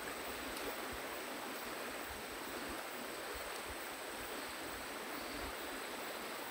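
Steady outdoor river ambience: an even hiss of running water, with a faint steady high insect whine above it.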